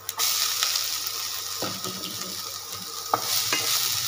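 Chopped onions added to hot oil in a non-stick kadai, starting a sudden, loud sizzle. A spatula stirs them, scraping or tapping the pan a few times.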